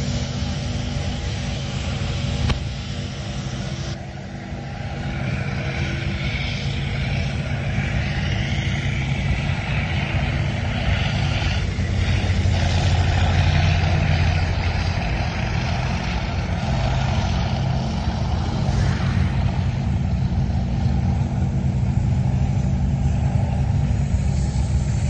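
Tank engines running as tanks drive past. The sound is a steady low hum with a rougher mechanical noise on top, and it grows louder about halfway through.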